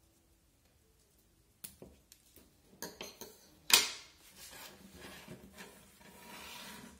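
Small metal bonsai scissors snipping stems on a bougainvillea: a few light clicks, then a sharp metallic clack, the loudest sound, just under four seconds in. Softer rustling and handling noise follows as the potted tree is moved.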